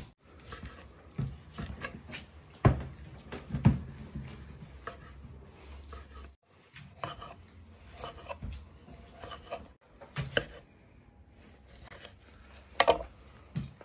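Kitchen knife slicing tomatoes on a wooden cutting board, the blade knocking on the board at an uneven pace, with the sharpest knocks about three and four seconds in and again near the end.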